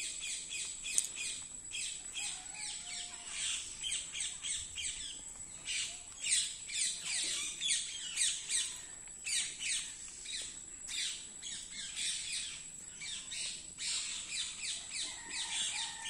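A flock of green parakeets calling: many short, shrill squawks, overlapping and nearly continuous.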